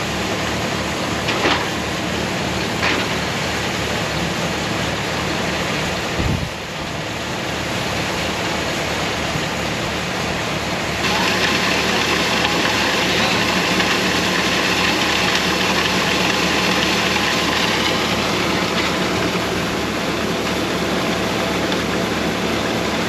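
Tractor-driven grinder-mixer and grain augers running steadily, moving grain from the bin into the mixer tank, with a regular low engine pulse. Two sharp knocks come in the first few seconds and a thump near six seconds; about halfway through the machinery gets louder, with a hissing rush added.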